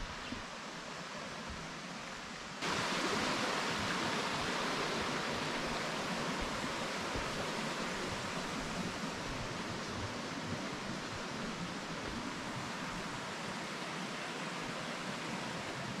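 Steady rush of running water, a hiss that jumps louder about two and a half seconds in and then holds.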